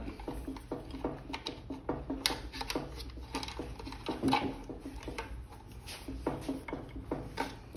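Light, irregular clicks and taps, several a second, from hands working around the e-bike's front fork and handlebars.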